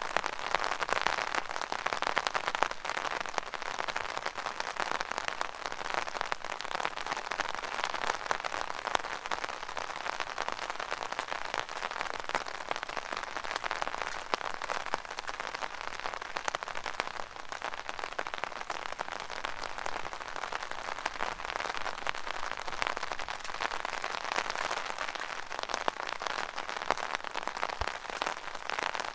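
Rain hitting an umbrella overhead, a dense spatter of close drop hits, with footsteps splashing through small puddles.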